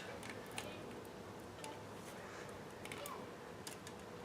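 Faint, scattered light clicks and ticks of a screwdriver and small metal parts being handled as a screw is taken out of a car stereo's CD unit chassis.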